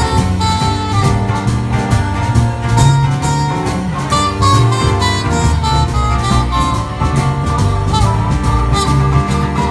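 Live band music with no singing: acoustic guitars strumming under drums, with a wind instrument carrying a sustained melody line.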